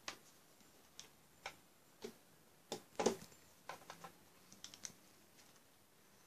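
Faint handling noise: about a dozen small, irregular taps and clicks as plastic dolls are moved about on doll furniture. The loudest is around three seconds in, and they stop after about five seconds.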